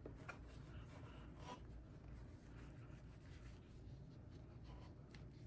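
Near silence: room tone with a low hum and a few faint soft handling clicks and rustles.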